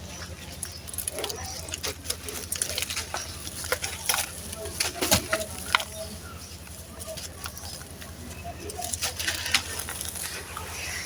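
Dry, gritty sand-cement chunks crumbling and crunching between fingers, a run of irregular crisp crackles and grainy patters with one sharper snap about five seconds in. A steady low hum runs underneath.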